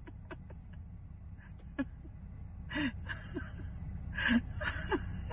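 Faint, muffled voice sounds, short gasps or bits of laughter, over a steady low rumble heard inside a closed car.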